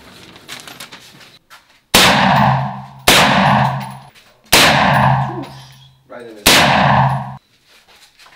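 Four single shots from an M16 rifle, fired one at a time about 1 to 2 seconds apart. Each shot is loud and rings out in a long echo off the brick walls of the indoor range.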